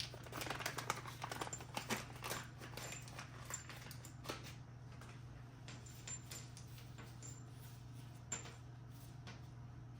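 Small metal clicks and clinks of brake caliper bracket bolts and parts being handled: a quick run of them in the first two or three seconds, then a few scattered ones, over a steady low hum.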